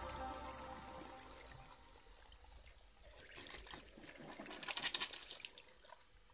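Faint water-splash and dripping sound effects of a logo animation, swelling to a crackling splash about five seconds in. The tail of electronic music fades away in the first second.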